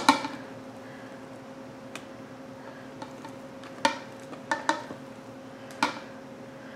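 A silicone spatula scraping and knocking against a mixing bowl several times, sharp separate clicks, while thick cream cheese icing is scooped out, over a steady low hum.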